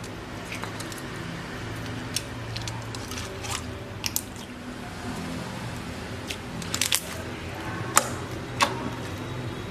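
Hands squishing and working slime, with scattered sticky clicks and pops from air pockets. The loudest pops are a cluster about seven seconds in and two more about eight seconds in.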